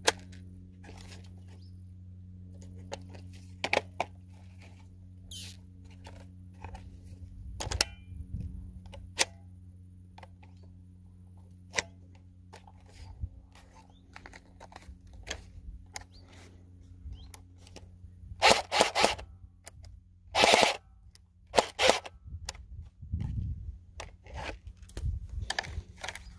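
Plastic clicks and snaps from a 3D-printed airsoft Bren 2 electric rifle being handled as the magazine is seated, worked at and removed. The clicks come at irregular intervals, with a few louder rattling clatters about two-thirds of the way through.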